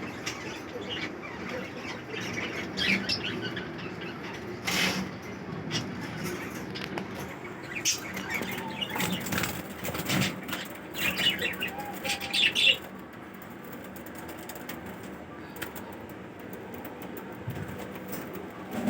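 Ringneck parakeets in an aviary: wings fluttering and short high chirping calls. The birds are busiest for the first two-thirds, then quieter, over a low steady hum.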